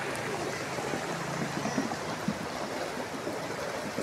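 Floodwater rushing in a steady, unbroken wash of noise: a sudden flood bursting out of a railway tunnel under construction.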